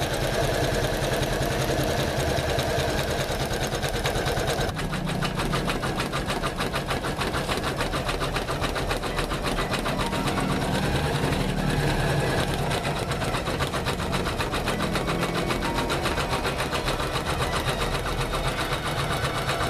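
Janome MC500E computerized embroidery machine stitching, its needle running in a fast, even stream of strokes; the tone of the machine shifts about five seconds in.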